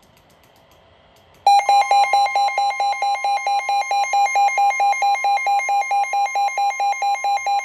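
NOAA Weather Radio warning alert starting about a second and a half in: a loud electronic two-pitch warble, about four alternations a second, over a steady single tone. It signals an incoming warning broadcast.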